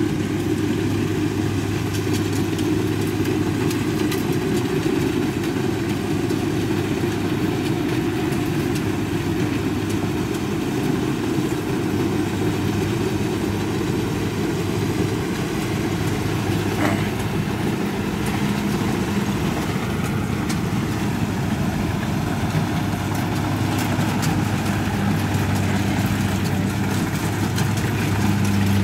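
Kubota DC70 combine harvester's diesel engine running steadily with an even hum as the machine cuts and threshes lodged rice.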